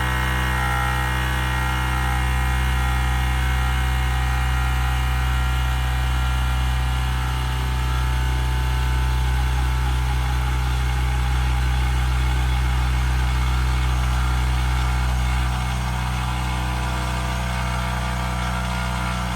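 Bauer 20V cordless brushless 1.6-gallon air compressor running, its motor and pump filling the tank with air. A steady hum that drops slightly in level about fifteen seconds in.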